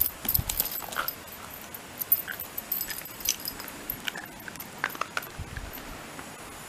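A Shiba Inu's paws on asphalt as it walks up close: light, irregular clicks and scuffs of its claws and pads.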